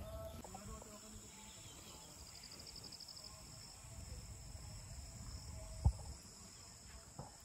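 Faint outdoor evening ambience of insects: a steady high-pitched drone, with a short pulsing trill about two and a half seconds in. A single sharp knock about six seconds in is the loudest sound.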